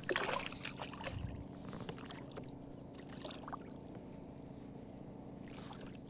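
Handling noises aboard a kayak: a short burst of rustling at the start, a soft low thump about a second in, then a few faint clicks over a quiet background.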